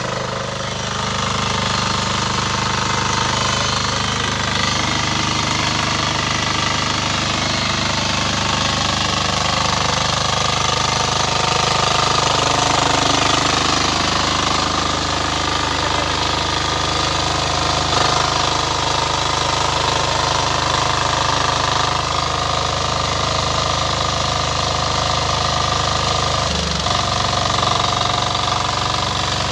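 Kirloskar Mini T 8 hp power weeder's engine running steadily under load as its rotary tines till soil, the note dipping briefly near the end.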